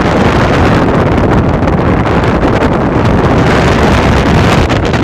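Loud wind buffeting the microphone from a moving bus, over the steady rumble of the engine and road.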